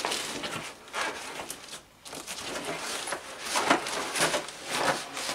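Cardboard packaging being handled: irregular rustling and scraping, with several short louder scrapes in the second half.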